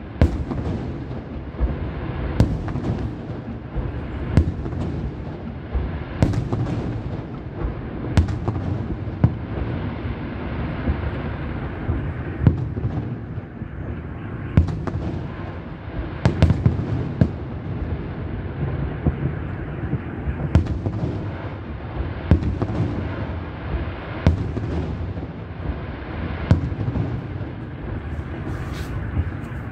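Fireworks display, with aerial shells bursting one after another: sharp bangs every second or two over a continuous low rumble.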